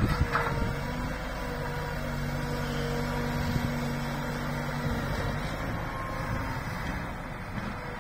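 Road-rail excavator's diesel engine and hydraulics running steadily as it swings its grab bucket, a constant drone with a steady hum, after a brief clank at the start.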